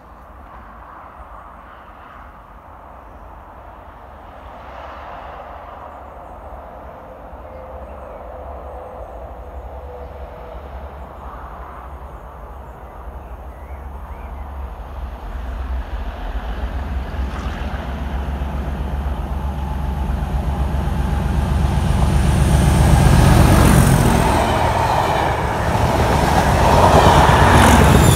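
A diesel-hauled test train with Class 37 locomotives approaches and passes close by. Engine noise and wheel-on-rail rumble grow steadily louder and are loudest in the last few seconds as the train goes past.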